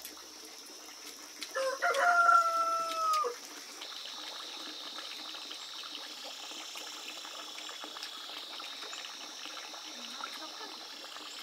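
A rooster crowing once, a call under two seconds long that is held steady and then drops off at the end.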